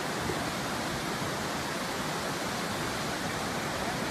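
Muddy floodwater of a river in flood rushing past, a steady, even rush of water with no let-up.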